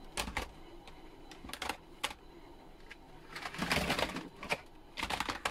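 Plastic clicks and clatter of TV remote controls being handled and their buttons pressed, in irregular bursts with a denser flurry about three and a half to four seconds in.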